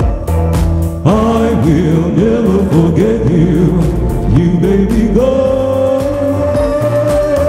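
A song playing, with a solo singing voice over a steady beat and bass. The voice sings a bending, sliding melodic run, then holds one long note from about five seconds in.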